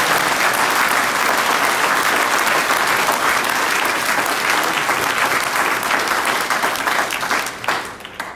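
Audience applauding a speech, a dense steady clapping that dies away in the last second.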